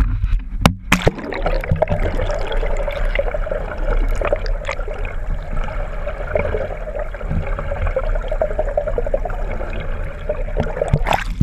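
Water rushing and gurgling over a camera held underwater, heard muffled through its housing, with a steady low rumble underneath. A few sharp knocks and splashes about a second in as the camera goes under.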